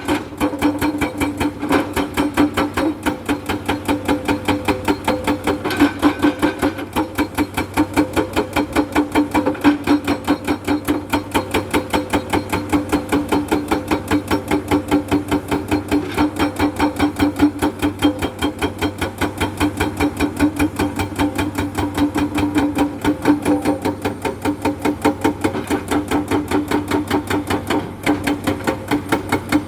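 Excavator-mounted hydraulic rock breaker hammering limestone in a fast, steady run of blows, its chisel ringing with each strike.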